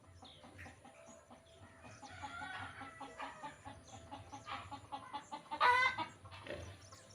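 Chickens clucking in a string of short calls, with one louder, sharper call near the end.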